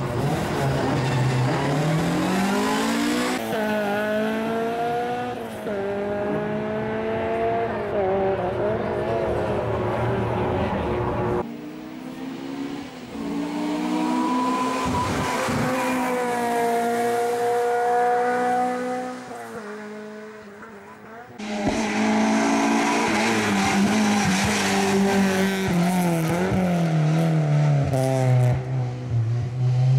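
Race-prepared Honda Integra's four-cylinder engine at full throttle on a hillclimb run. The engine revs up hard and drops back with each gear change, again and again. The sound breaks off abruptly twice, and in the middle stretch the car is fainter, growing louder as it approaches.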